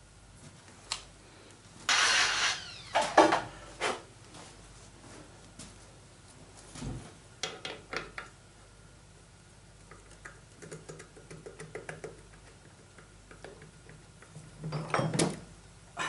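Steel drive sprocket and hand tools clinking and scraping against a Babetta moped's engine while the sprocket is fitted. A loud scraping rattle comes about two seconds in, followed by scattered clinks, a run of light ticks, and another clatter near the end.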